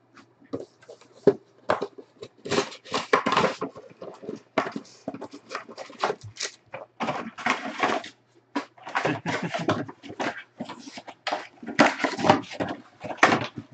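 Cardboard trading-card box being torn open and its foil-wrapped card packs pulled out and stacked, with irregular crinkling, rustling and tearing of the packaging.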